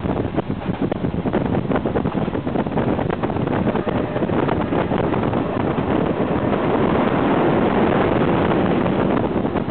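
Passenger train running at speed, heard from inside the carriage: a steady loud rush of wheels and wind, with rapid irregular crackle of wind buffeting the microphone. It swells a little near the end.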